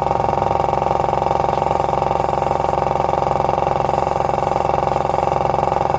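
Small piston airbrush compressor with a tank running steadily with a fast, even pulse, pumping properly again after repair and holding pressure. Four short hisses of air come and go over it as the airbrush is triggered.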